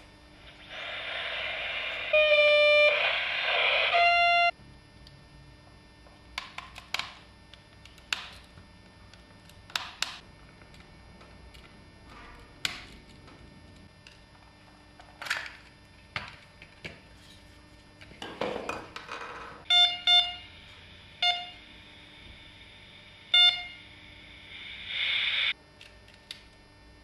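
Toy walkie-talkie hissing with static and sounding short beeping tones, then scattered sharp clicks and taps of its plastic casing, screws and tools being handled. Near the end come more short beeps and another burst of static.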